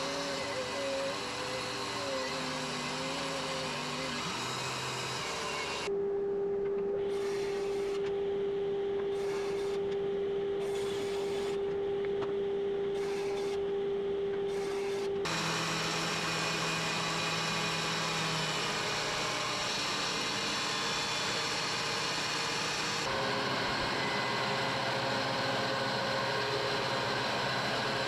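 Woodworking machines milling red oak boards, in several abruptly joined stretches. A thickness planer runs boards through at the start and end, and a table saw runs with a strong steady hum while a board is ripped in the middle.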